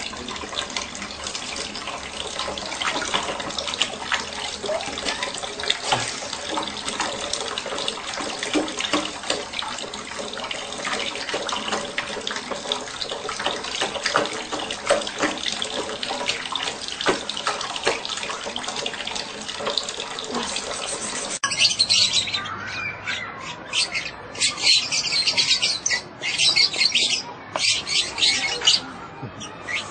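Water from a tap running steadily into a bowl in a bathtub. After about twenty seconds it cuts abruptly to lovebirds chirping, a quick run of high chirps with short breaks.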